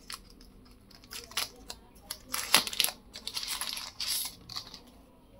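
Plastic wrapping crinkling and rustling as it is peeled off a wireless earbud charging case, with scattered small clicks and taps. There is a sharp click about two and a half seconds in, then a longer crinkle.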